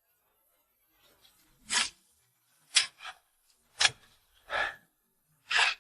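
Shovel digging into earth, scraping in about six short strokes roughly a second apart, beginning a little under two seconds in.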